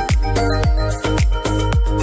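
Background music: an electronic dance track with a steady kick drum beat, about four beats a second, over sustained synth notes.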